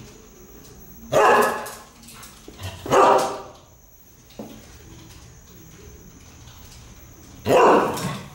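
A husky-type dog barking: three loud barks, about a second in, about three seconds in, and near the end, each trailing off.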